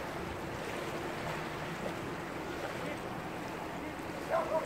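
Steady open-air noise of wind and shallow lagoon water, with a short pitched call near the end.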